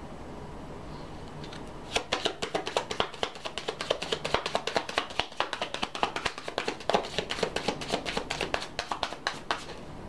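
A deck of message cards being shuffled by hand: a rapid, irregular run of card-on-card clicks that starts about two seconds in and stops shortly before the end.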